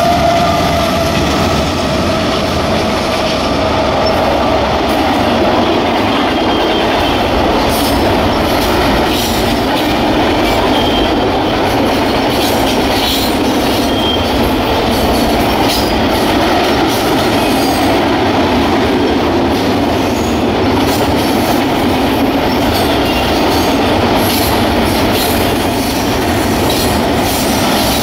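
Double-stack intermodal freight train passing close by. A whine from the passing diesel locomotives falls in pitch and fades within the first couple of seconds. Then comes the steady rumble of the container well cars' wheels on the rail, with clanks and a few brief high wheel squeals.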